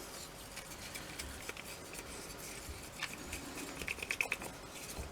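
White and black gesso being mixed into grey: soft irregular tapping and scraping of the mixing tool against the palette, busier near the end.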